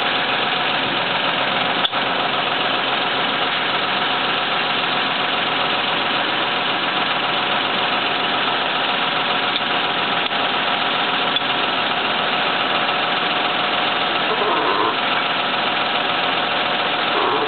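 Truck's diesel engine running steadily, driving the loader crane while it holds the machine tool. A single sharp knock about two seconds in.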